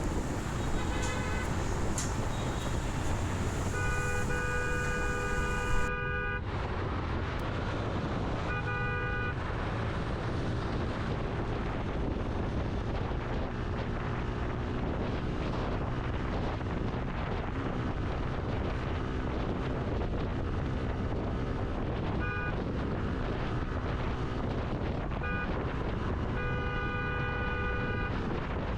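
Vehicle horns honking several times, a couple of seconds long near the start and near the end and briefly in between, over the steady rumble of road and wind noise from riding in traffic.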